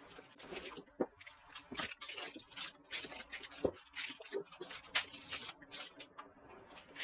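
Hands handling packaging and small hardware: an irregular run of rustles, light clicks and taps, with a sharper tap near the middle.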